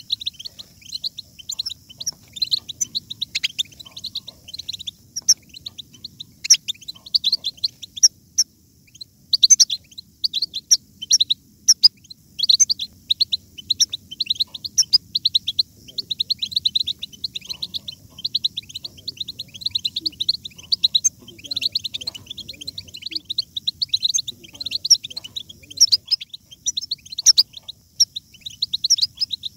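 European goldfinches twittering: a rapid, unbroken stream of short, high chirps and trills.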